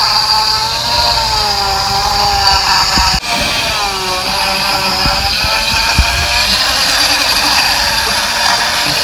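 Handheld rotary tool spinning a stiff wire brush against dry bougainvillea deadwood, texturing the carved surface. The motor's whine wavers in pitch as the brush is pressed into the wood, with a brief break about three seconds in.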